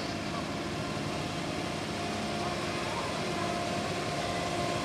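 Ride-on 7.5-inch gauge diesel-outline miniature locomotive pulling a passenger train past: a steady mechanical hum, with a faint high whine that comes in about halfway through.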